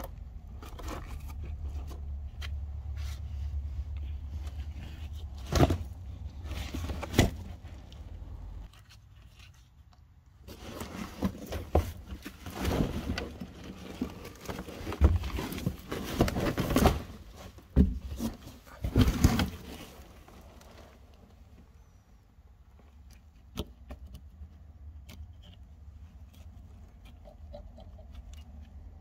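Irregular knocks, scrapes and clatter of parts being handled and pulled loose, thickest in the middle of the stretch, over a steady low hum that stops about a third of the way in.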